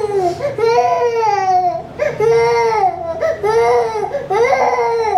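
A feverish child crying loudly in a run of about five wails, each about a second long, rising then falling in pitch, while being made to drink fever medicine.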